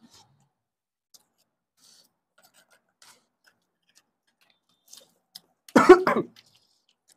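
A single loud cough, about half a second long, near the end, after a stretch of only faint small clicks and ticks from eating by hand.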